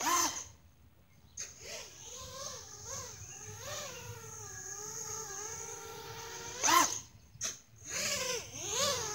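Micro quadcopter with 1806 2300kv brushless motors and 4045 two-blade props, on a 4S battery, flying: its motor-and-prop whine rises and falls in pitch with the throttle. The whine nearly drops out about half a second in, and a sharp punch of throttle comes just before seven seconds.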